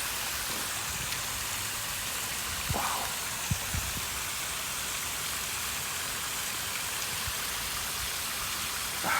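Steady hiss of rain falling, with a few faint knocks about three seconds in.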